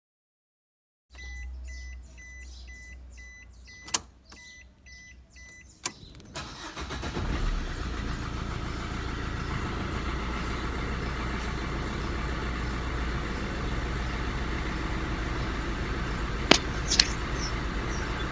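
A car's electronic warning beep repeats about twice a second over a low hum, with two sharp clicks. Then, about six seconds in, the old car's engine catches and settles into a steady idle. The owner puts its earlier refusal to start down to an electrical fault that wiggling the wires cures.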